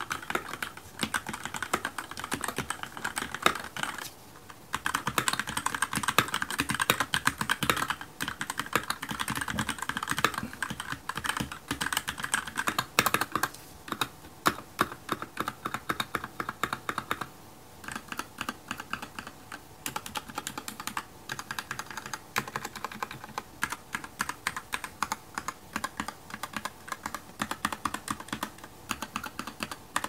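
Keychron K6 68-key mechanical keyboard with Gateron red linear switches being typed on: fast continuous keystrokes for about the first half, with a brief pause near four seconds in, then individual keys pressed one at a time with short gaps between them.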